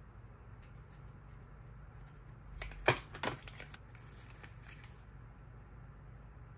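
Hands handling cardboard jewellery and perfume boxes: a few faint taps, then two sharp clacks close together about three seconds in, followed by a brief crackly rustle of card and tissue paper, over a low steady hum.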